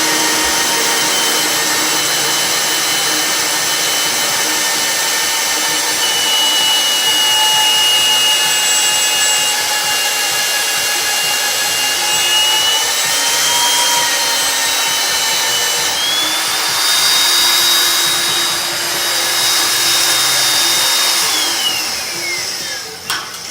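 Magnetic drill motor running steadily as it bores a hole in steel, its whine rising in pitch about two-thirds of the way through. Near the end the motor is switched off and winds down, with a sharp click.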